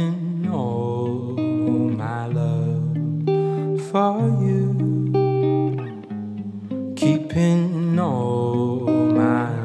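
Background music: a song led by plucked guitar.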